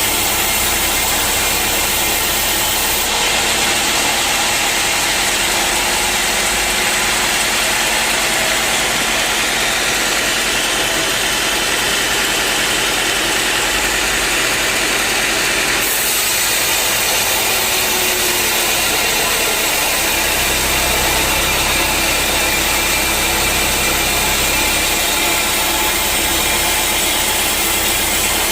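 Sawmill machinery running steadily with a loud, even drone. Its character shifts abruptly about 3 and 16 seconds in.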